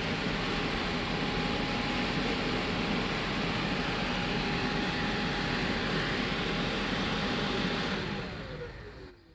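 3D-printed radial fan impeller driven by an electric motor at 12 V, about 3,500 rpm, running with a steady rush of air and a thin whine. About eight seconds in, the power is cut and it spins down, the whine falling in pitch as the air noise dies away.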